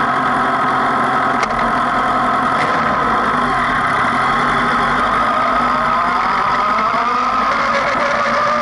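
Suzuki GSX-R1000 K7's inline-four engine idling just after a start, then pulling away, with the engine note shifting in pitch about five seconds in. A sharp click sounds about a second and a half in.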